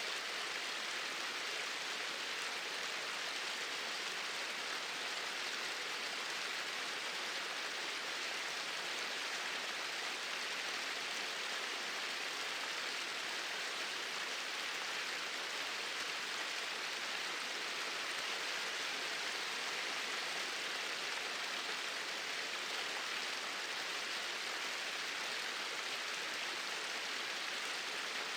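Small waterfall pouring steadily into a stream, an even rushing hiss of falling water.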